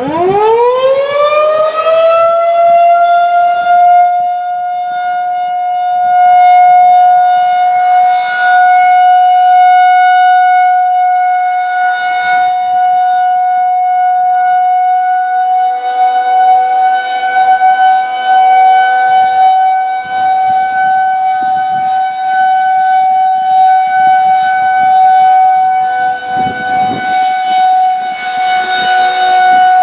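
Federal Signal 2001-130 electromechanical warning siren winding up from rest, rising in pitch over about two seconds, then holding one steady tone: the start of the Alert (steady) signal on a siren test. Wind buffets the microphone now and then.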